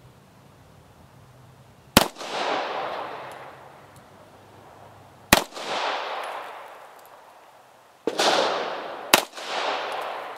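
Four shots from a Walther P1 9 mm semi-automatic pistol, a few seconds apart at first and the last two about a second apart, each followed by an echo that dies away over about a second.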